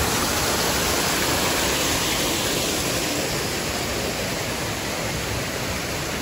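Several artificial rockwork waterfalls pouring into a pool, making a steady rush of falling water that grows slightly fainter.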